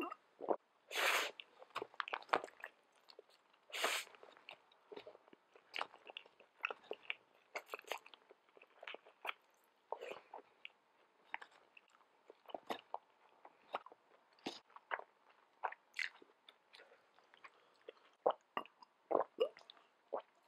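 Close-up mouth sounds of a person eating spicy fire noodles: wet chewing with many small smacks and clicks. Two louder, longer sounds come about one and four seconds in.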